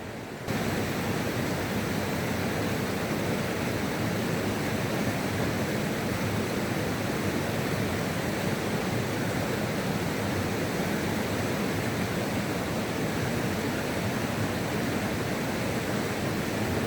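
Rushing water, a steady even hiss that cuts in suddenly about half a second in.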